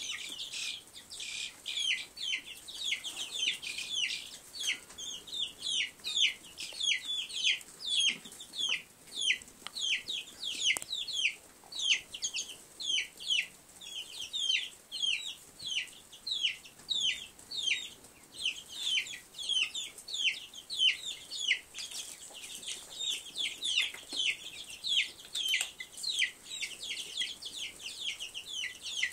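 A brood of young chicks and ducklings peeping without pause: a stream of short, high, falling peeps, several a second and overlapping.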